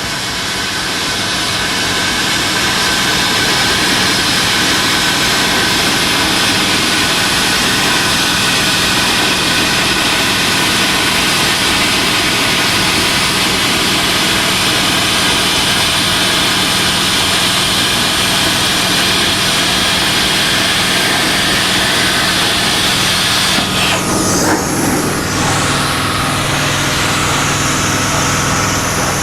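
Power tool cutting sheet steel: a loud, steady rush of noise that builds up over the first few seconds, then changes about 24 seconds in, thinning to a high wavering whine.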